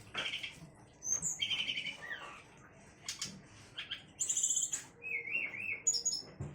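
Sikatan rimba dada coklat (SRDC) songbird chirping and trilling: a run of short, sharp, high-pitched phrases with brief gaps, and a quick up-and-down warble about five seconds in. This is the excited call used by bird keepers to stir a caged SRDC into song.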